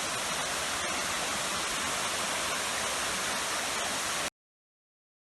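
Salto Curet waterfall rushing: a steady wash of falling water that cuts off suddenly about four seconds in.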